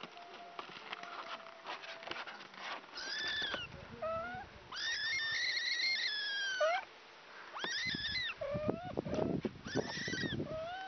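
Young kittens mewing: repeated high, thin cries, one drawn out for about two seconds in the middle, with a few shorter, lower mews between them.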